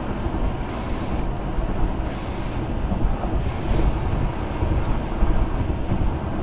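Steady road and wind noise of a car driving at highway speed, heard inside the cabin through a dashcam microphone, with a few faint ticks.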